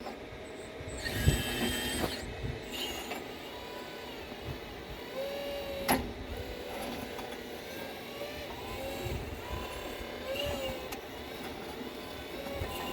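A 1:8 scale radio-controlled CAT 395 excavator running: a steady mechanical whine that dips and rises in pitch as it works. A sharp knock comes about a second in and another at about six seconds.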